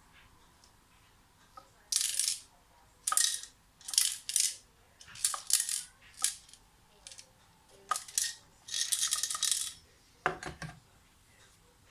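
Ibiza RGB LED moving-head light rattling from its head in a run of short, irregular bursts that start about two seconds in. The last burst, near the end, has a duller knock under the rattle.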